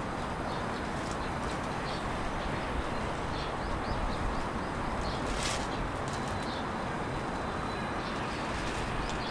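Steady outdoor background noise of wind and distant town, with faint bird calls and one brief hiss about five and a half seconds in.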